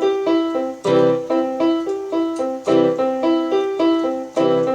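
Home electronic keyboard in a piano voice playing a repeating broken-chord pattern, several notes a second, with a low bass note struck about every two seconds.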